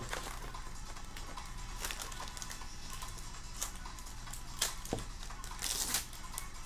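Plastic wrapper of a Topps Opening Day baseball card pack crinkling and being torn open by hand, a scatter of sharp crackles with the densest burst near the end.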